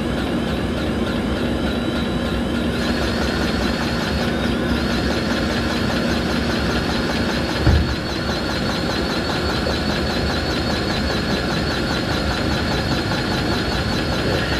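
An engine running steadily. A single dull thump comes about halfway through, where a steady hum in the sound stops.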